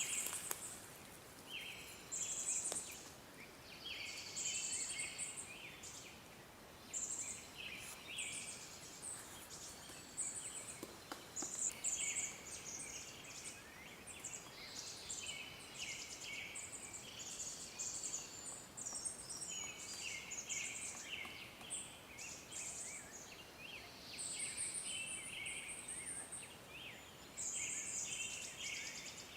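A chorus of many short, buzzy chirping calls, each about half a second to a second long, repeating and overlapping over steady background hiss. No clear pecking or drumming stands out.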